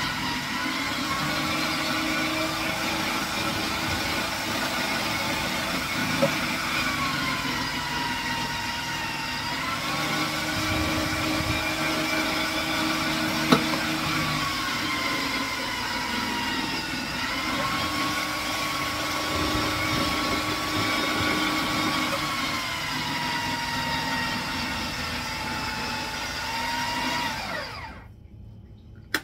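Electric food processor grating squash pushed down its feed chute: a steady motor whine whose pitch sags and recovers as pieces are pressed against the grating disc, with a couple of short knocks. About a second before the end the motor winds down and stops.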